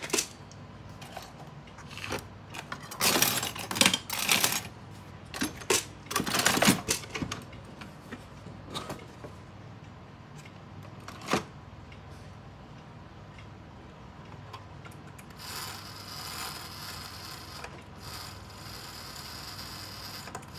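Light metallic clicks and rattles as the Seiko Sonola wall-clock movement is handled, with a few single clicks after them. Near the end comes a steady mechanical whir, in two spells with a short break between.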